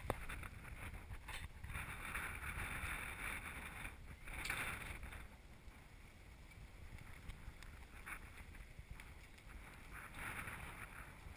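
Faint low rumble and wind noise on a car-mounted camera as the car rolls slowly along a street, with hiss swelling in waves a few times.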